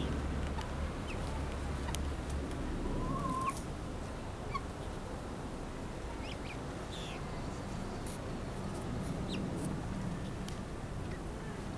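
Young helmeted guineafowl giving short, scattered high chirps, some dropping in pitch, with one lower call about three seconds in, over a steady background hiss.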